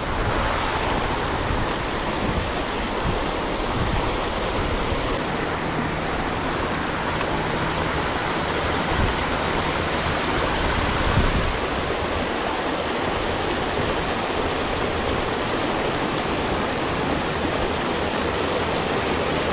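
Fast-flowing creek water rushing steadily, with the river running high.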